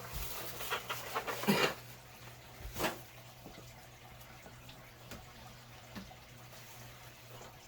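Foam packing and plastic rustling and scraping as a PC tower is pulled out of its box, with a single knock about three seconds in, then only a few faint handling sounds.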